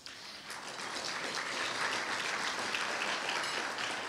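Audience applause, building over the first half-second and then holding steady.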